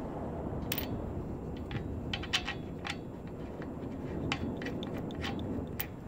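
Irregular sharp clicks and taps of small metal parts being handled and turned by hand on a steel mounting plate, about fifteen in all, over a steady low background noise.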